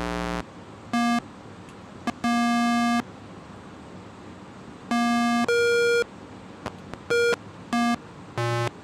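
CMOS electronic keyboard playing single electronic notes one at a time, about eight short tones at different pitches and octaves, each rich in overtones. The notes come through from the oscillator and divider circuits, showing the dividers' octaves are working.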